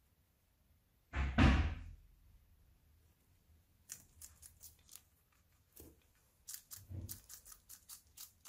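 A guinea pig biting and tugging at a white strip held above it: a run of small crisp clicks and snips, several a second, from about four seconds in. A louder rustling thump comes about a second in.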